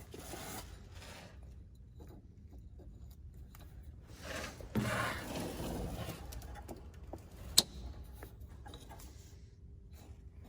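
Rubbing and scraping of hands-on work on parts, loudest about five seconds in, with one sharp click about two seconds later.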